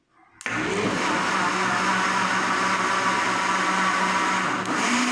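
Countertop blender switching on about half a second in, spinning up and then running steadily as it blends a liquid cake batter; its motor pitch steps up slightly near the end.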